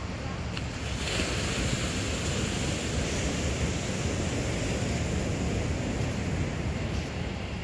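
Ocean surf breaking and washing up the beach, a steady rushing wash that swells about a second in, with wind rumbling on the phone's microphone.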